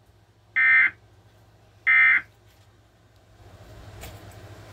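Emergency Alert System end-of-message signal: two short digital data bursts, each about a third of a second long and about 1.3 seconds apart, marking the end of the tornado warning broadcast. A low steady hiss comes up about three and a half seconds in.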